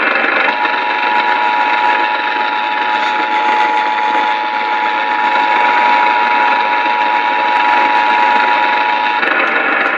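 Emergency Alert System two-tone attention signal received over AM radio: a steady dual tone begins about half a second in and cuts off shortly before the end, over constant radio hiss and static.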